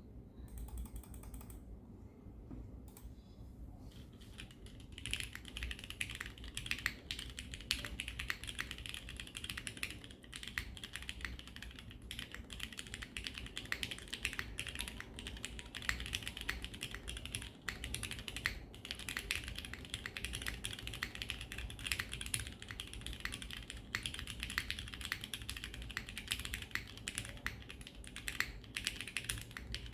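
Typing on a plateless Leviatán R1 custom mechanical keyboard with lubed and filmed retooled Cherry MX Black linear switches and GMK keycaps: a few scattered keystrokes, then from about four seconds in a fast, steady stream of key presses.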